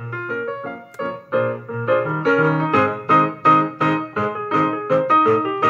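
Piano-like keyboard music played back through a TDA2030 kit amplifier into a Koss speaker, getting louder about a second in. It is loud and sounds clean, without obvious distortion.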